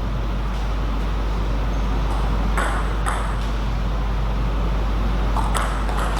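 Table tennis ball clicking sharply off bats and table: a few quick hits around the middle and another cluster near the end, over a steady low hum.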